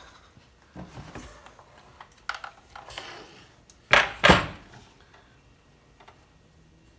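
Metal parts and tools being handled on a workbench: small knocks and rattles, then two sharp metallic clinks in quick succession about four seconds in.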